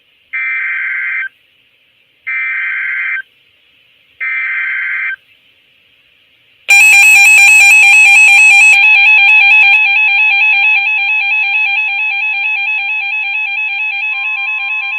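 Emergency Alert System tones on NOAA Weather Radio. First come three short bursts of buzzing digital header data, about a second each with a second's pause between. Then a loud, steady attention tone starts about seven seconds in, announcing a severe thunderstorm warning, and a second, fainter tone joins near the end.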